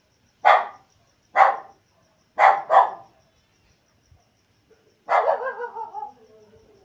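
A dog barking: four short, loud barks in about two and a half seconds, the last two close together, then a longer bark that falls in pitch over about a second.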